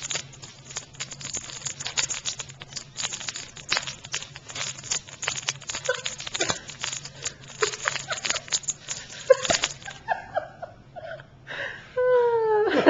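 Cellophane package crunched and crinkled by hand in a run of irregular sharp crackles, faking the crackle of a wood fire for a gas log fireplace that is actually silent. The crackling stops about ten seconds in, and a short laugh follows near the end.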